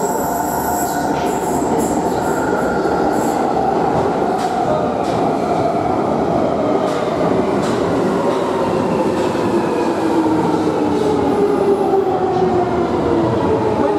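London Underground 1996 Stock Jubilee Line train running into the station at speed and braking: a loud steady rush of wheels on rail, with the motor whine falling slowly in pitch as it slows and a few clicks from the wheels.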